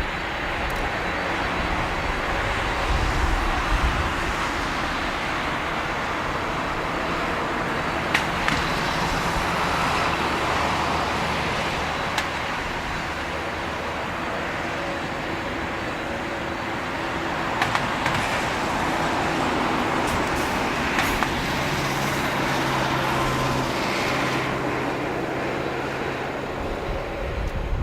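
Steady, distant jet-engine rumble of a four-engine Boeing 747-400F, with a few short clicks.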